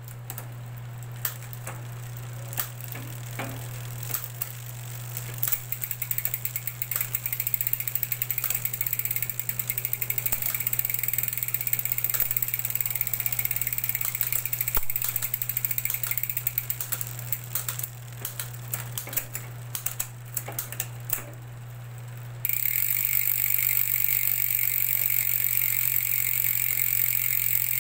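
Mountain bike drivetrain running: a 10-speed chain over an 11-46T cassette with an LTWOO A7 rear derailleur. Sparse clicks at first give way to rapid ticking, which becomes a louder, steadier whir about 22 seconds in, over a steady low hum.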